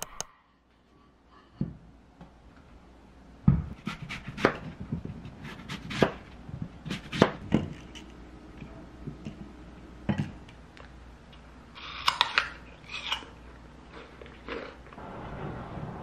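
Apple being sliced with a knife on a wooden cutting board: a series of sharp knocks and taps, with a cluster of brighter, crisper crackling sounds about three-quarters of the way through.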